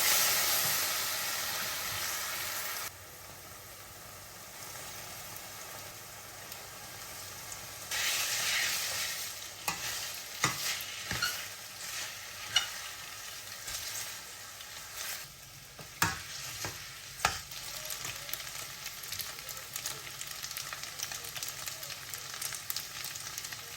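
Food sizzling in a frying pan while it is stirred, with a steady hiss and several sharp knocks of the utensil against the pan. The sizzle is loudest in the first few seconds, cuts off abruptly about three seconds in, and swells again before the knocks.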